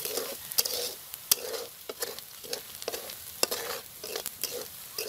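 Chopped onions sizzling in hot oil in a kadai while a metal spatula stirs them, scraping and clicking against the pan in regular strokes about twice a second.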